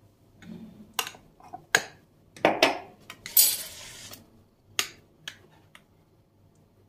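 Metal spoon clinking and scraping against a glass bowl while stirring yogurt sauce: a string of separate taps and clicks, with a longer scrape about three and a half seconds in.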